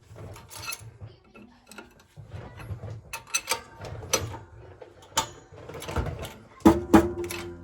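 Light metal clicks and scrapes, then from about seven seconds in a run of sharp metal strikes, each leaving a short ringing tone. This is a wheel-bearing circlip being worked into its groove in a Mk2 Golf GTI hub carrier.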